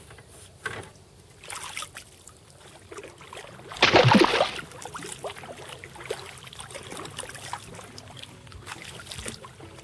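Kayak paddle strokes in the water, the blade dipping and dripping, with a trickle of water running off. One much louder burst comes about four seconds in.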